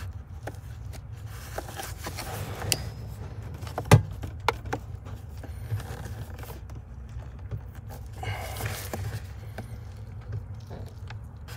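An electrical wire connector and wiring harness being worked loose by a gloved hand behind a truck dashboard: scraping and rustling of glove and cables, small plastic clicks, and one sharp click about four seconds in, over a steady low hum.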